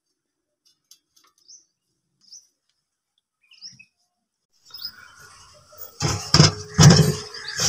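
Faint bird chirps, then, from about six seconds in, aluminium cooking pots clanking loudly several times with a metallic ring as they are set down and stacked on a mud shelf.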